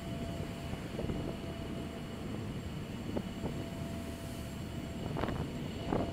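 Steady low rumble and hum of a ferry's engines, heard from inside the passenger cabin. A couple of sharp knocks from a hand on the phone land about five and six seconds in.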